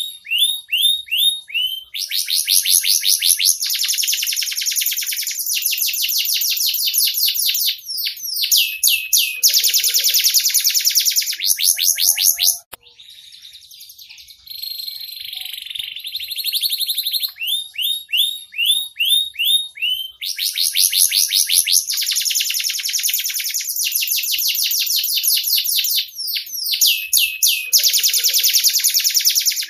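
Domestic canary singing a long song of fast trills and rolls: high-pitched runs of rapidly repeated notes and sweeping slurred notes, broken by short pauses. The song drops to a softer, hazier passage about halfway through before the trills resume.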